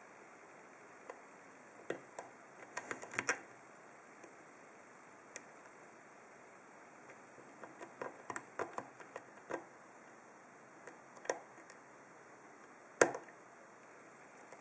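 Small, sharp metallic clicks and ticks of a Peterson Gem pick and tension wrench working the pin stack in the keyway of a Lockwood 334C45 stainless steel padlock during single-pin picking. They come in scattered clusters, around three seconds in and again around eight to nine seconds in, with the sharpest click about thirteen seconds in.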